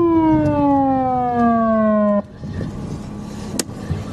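Police car siren winding down: one steadily falling tone that cuts off suddenly about two seconds in, leaving car engine and road noise heard from inside the car.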